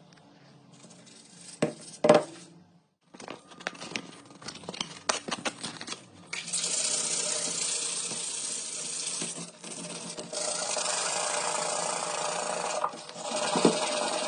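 Scattered clicks and knocks, then from about six seconds in a steady spray hiss, typical of an aerosol spray can, broken twice by short pauses.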